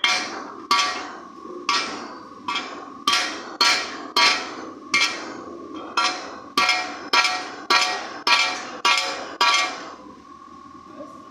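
Hammer striking a 70cc motorcycle crankshaft flywheel on a steel block, driving the two crank halves together onto the crankpin to make it one piece. About fifteen blows come roughly every half second, each with a metallic ring, and stop about ten seconds in.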